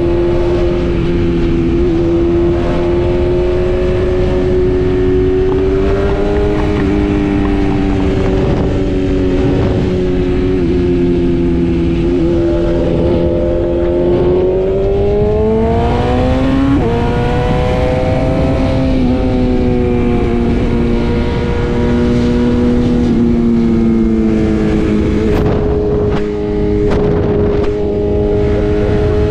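BMW S1000RR inline-four engine running at highway speed over wind rush. Its pitch rises under throttle a little past halfway, jumps suddenly, then sags and steps again near the end.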